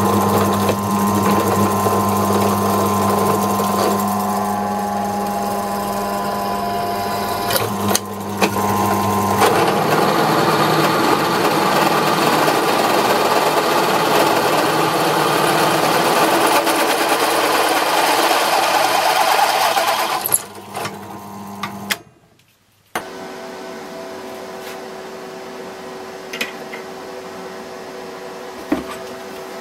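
Bench drill press motor running and a twist bit cutting through square steel tubing, first a small pilot bit and then, about nine seconds in, a larger bit with a louder, rougher cutting sound. The press winds down about twenty seconds in. After a short break a quieter steady hum follows, with a couple of light knocks near the end.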